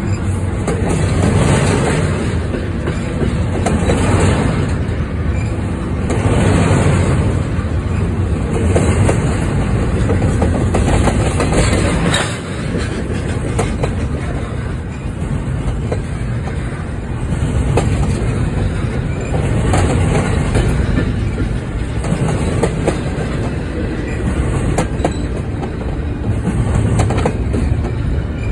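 Double-stack container freight train passing at close range: a steady, loud rumble of steel wheels on rail that swells and eases every couple of seconds, with sharp clicks of the wheels over the rail joints.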